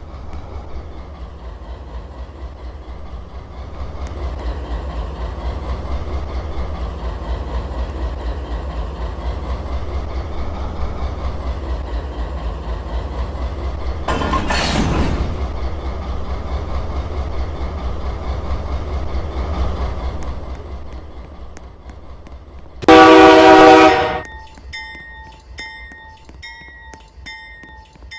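A train rumbling past on the rails, easing off after about twenty seconds. Then a short, loud blast of a multi-note locomotive horn, followed by a bell dinging rapidly and steadily.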